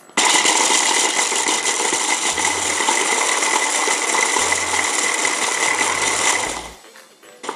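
800-watt stick blender motor with its chopper attachment, grinding matzo crackers into breadcrumbs at middle speed. A steady whine runs for about six seconds, then stops and winds down.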